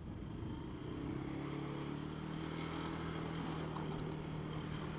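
Honda Dio scooter engine pulling away from a crawl. Its low hum climbs in pitch about a second in, then holds steady as the scooter cruises.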